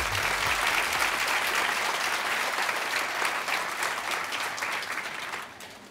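Audience applauding in a theatre as a dance number's music stops, the clapping dying away near the end.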